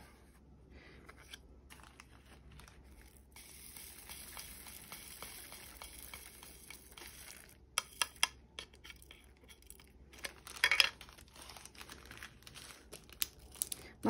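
Small plastic zip bags of diamond-painting drills crinkling as they are handled, with a plastic drill tray and a few light clicks. The loudest sound is a short crinkle about ten and a half seconds in.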